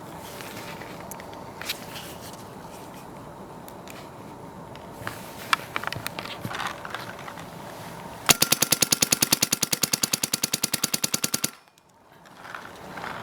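Stock Empire Axe paintball marker firing a rapid string of shots, an even fast rattle lasting about three seconds that starts about eight seconds in, with a few scattered clicks before it.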